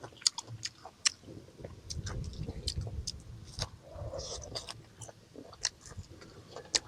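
Close-up mouth sounds of someone chewing mango: scattered wet smacking clicks, with a denser stretch of chewing in the middle.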